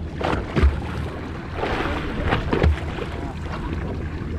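Small fishing boat at sea: a steady low rumble under two pairs of sharp knocks on the hull, with a brief wash of water-like hiss between them.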